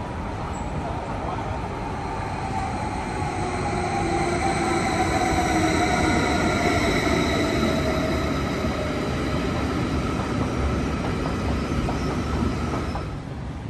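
Electric train pulling into an underground station. Its running noise builds to a peak midway, with a whine and wheel squeal that slowly fall in pitch as it slows, then die away near the end.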